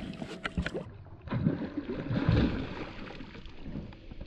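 Water sloshing and splashing against the side of a fishing boat, with a few short knocks in the first second.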